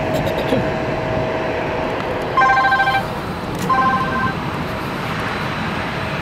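Two short trilling electronic rings, each about half a second long and a little over a second apart, over a steady outdoor rumble.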